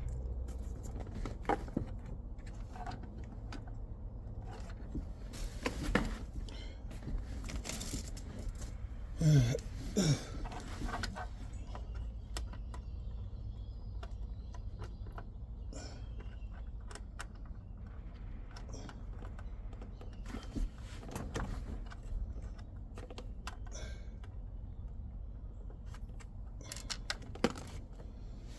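Scattered small clicks and metallic clinks of hand tools and parts being handled during work on a car, over a steady low hum, with a few louder knocks about six and ten seconds in.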